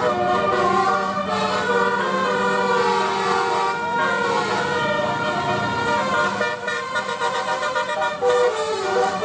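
Bus 'telolet' horns, sets of multi-tone air horns playing a melody: several tones sounding at once, the notes changing every fraction of a second, over a steady low hum.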